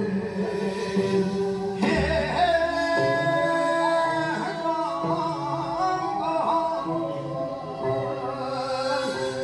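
Korean folk song (minyo) sung with instrumental accompaniment: a voice holds long notes with wide, wavering ornaments over steady backing tones.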